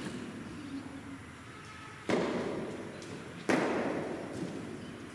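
Two sharp knocks of a cricket ball striking, about a second and a half apart, each trailing off in a hall's echo.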